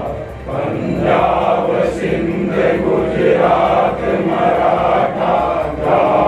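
A group of uniformed police officers singing together in unison, in slow, held notes.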